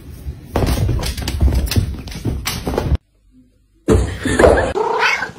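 Domestic cat meowing and yowling in drawn-out, wavering calls, starting about four seconds in after a brief silence. Before that comes a dense run of rustling and knocking.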